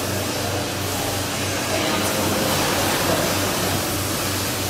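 Rotary milking parlour machinery running: a steady low hum under an even hiss.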